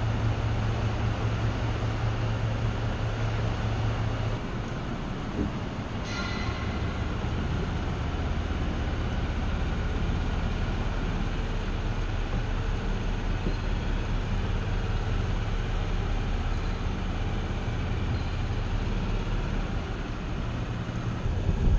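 Small sailboat's motor running steadily at low speed, a continuous drone. Its low hum shifts down about four seconds in, and a short high tone sounds about six seconds in.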